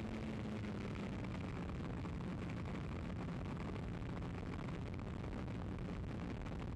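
The Peace Drone FPV plane's electric motor and the wind rush of flight, heard through its onboard microphone. About a second in, the motor's hum drops lower and fainter as the throttle is eased back.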